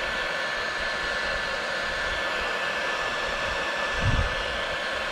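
Electric heat gun running steadily, its blower giving a steady rush of air with a thin whine, as it shrinks heat-shrink tubing onto a crimped wire terminal.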